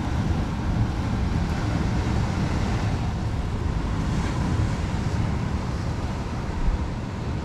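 Steady rumble of wind buffeting the microphone, with sea surf washing on the rocks underneath.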